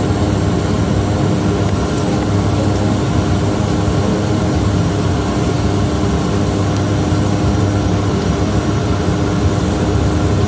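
Cabin noise of a Bombardier DHC8-Q400 turboprop on the ground before takeoff: its two PW150A engines and propellers make a steady drone with a constant low hum.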